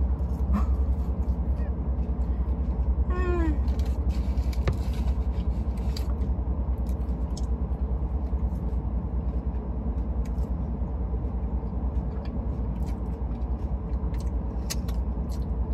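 Steady low rumble inside a Rolls-Royce car cabin, with a few soft mouth clicks from chewing food. About three seconds in there is one short falling voice-like sound.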